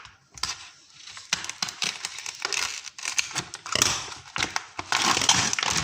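Raw shrimp being peeled by hand, the shells cracking and crackling in quick irregular snaps that grow denser over the last couple of seconds.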